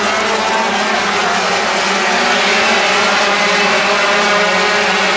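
A pack of 250cc two-stroke Grand Prix racing motorcycles running past together, many engine notes overlapping into one steady, loud sound.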